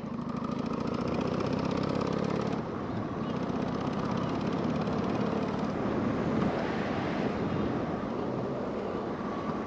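Harley-Davidson Sportster's air-cooled V-twin engine running while riding, mixed with wind noise. The engine is louder for the first two and a half seconds, then holds steady.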